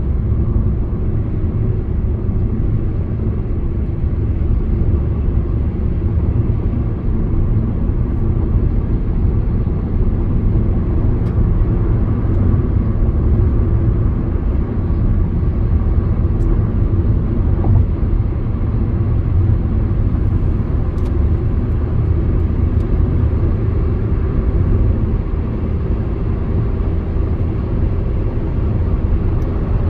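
A moving car heard from inside: a steady low rumble of road and engine noise at cruising speed.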